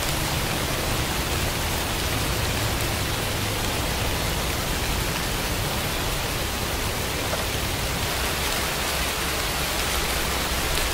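Recorded rain falling steadily, an even wash of noise with no breaks or thunder.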